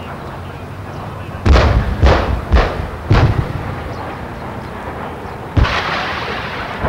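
Heavy gunfire in a live-firing exercise: four loud blasts about half a second apart, starting about a second and a half in, over a low rumble. Near the end a louder, rushing rumble sets in.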